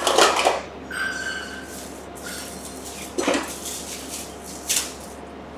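A few short clinks and rustles of kitchenware and a cloth being handled on a countertop, with a faint brief high tone about a second in.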